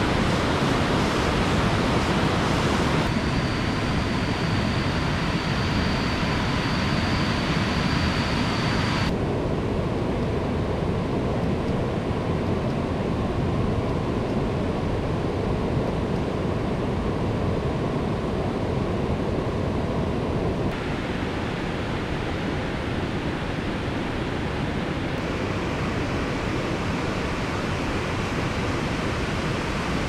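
Rushing water from a river and waterfall running high after heavy rain, a loud steady roar. A thin steady high whine sits over it for several seconds near the start, and for a stretch in the middle the sound goes duller before brightening again.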